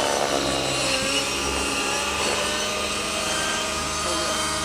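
ALIGN T-REX 700 Nitro radio-controlled helicopter in flight: its two-stroke glow engine runs at high revs along with the rotor. The engine note rises and falls slightly in pitch as the helicopter manoeuvres.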